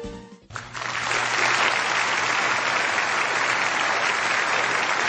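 Audience applauding steadily, starting about half a second in.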